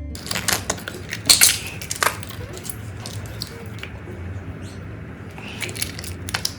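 Slime being squished and worked, making sticky crackles and sharp clicks. The loudest cluster comes about a second and a half in, with another near the end.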